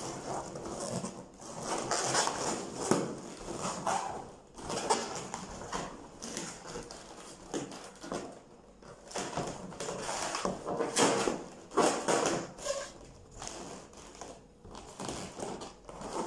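Inflated latex balloons squeaking and rubbing against each other in irregular bursts as they are twisted and tied together into a cluster.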